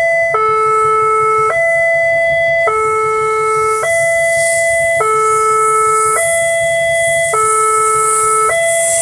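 Railway level-crossing alarm sounding its electronic two-tone warning, switching between a lower and a higher note about every second, the signal that the barriers are closed for an approaching train. A rushing noise builds from about halfway through.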